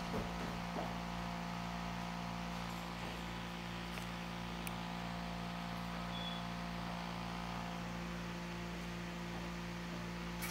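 A steady low electrical hum, with a couple of faint small ticks about four to five seconds in.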